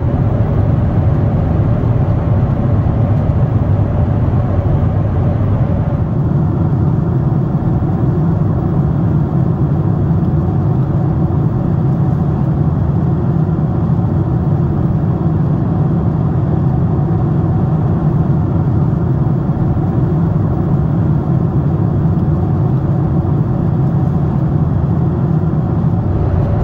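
Steady low drone inside the cabin of a Boeing 747-8i airliner in cruise flight: engine and airflow noise, strongest in the low range and unchanging.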